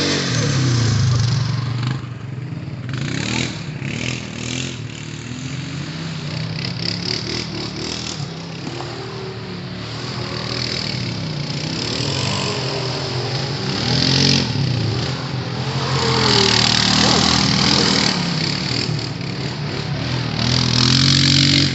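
ATV engine running on a trail ride, its pitch rising and falling with the throttle, with repeated bursts of hiss over it.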